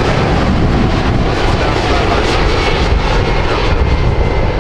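Loud, steady jet engine noise from a nearby airliner.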